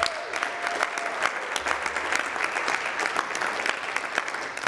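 An audience clapping in applause, with one held whoop in the first second, dying away near the end.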